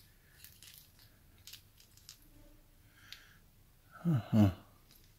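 Faint clicking and rustling of a Christmas-light garland's plastic clips and wires being handled. A short spoken word about four seconds in.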